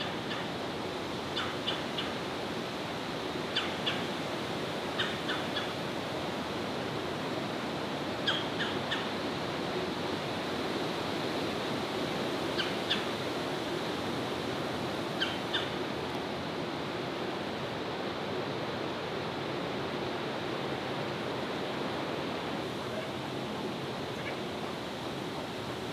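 Short, high chip notes from a small bird, in clusters of two or three every few seconds, stopping after about sixteen seconds, over a steady outdoor rush of background noise.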